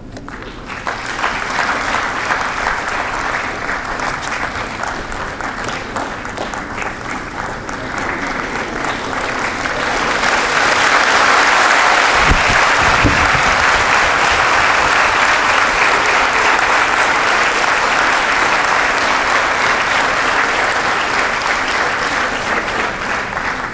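Audience applauding. The clapping starts about a second in, swells louder about ten seconds in, and stops at the end.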